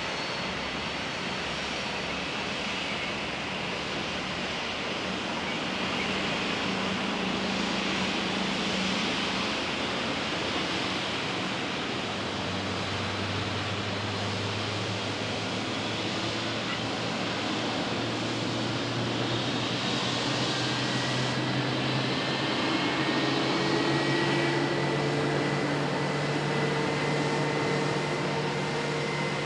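Jet airliner engines running, a steady rushing noise. Low hums come in about halfway through and grow a little louder, with a thin high whine near the end.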